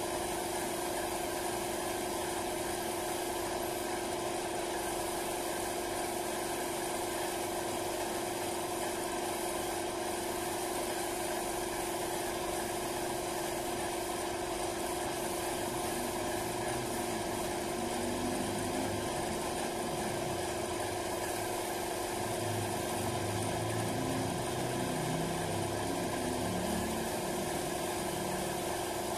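Air compressor running steadily, a constant even hum, supplying air to a paint spray gun.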